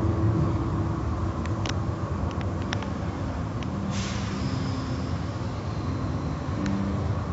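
Automatic tunnel car wash heard from inside the car: a steady low rumble of machinery and water spray against the body. A few sharp ticks come about two seconds in, and a sudden hiss of spray hits the car about four seconds in.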